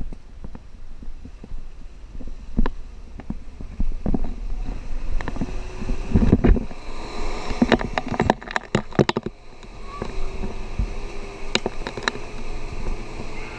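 SUV engine rumbling at low speed on a rough mud track, with irregular knocks and clatter as the vehicle jolts, clustered thickly a little past the middle. A faint whine comes in during the second half.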